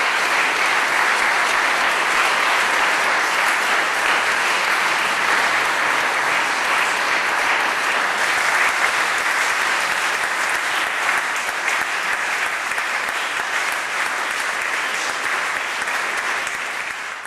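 Audience applauding: steady, dense clapping from a seated crowd, easing off slightly near the end.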